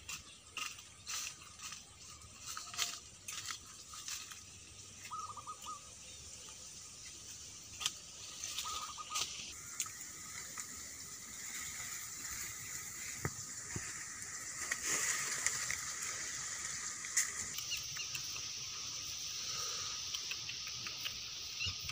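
Footsteps crunching on dry fallen leaves and twigs, and plant stems and grass blades rustling as they are pushed aside and handled. The first half is irregular sharp crackles; the second half settles into a steadier rustling hiss.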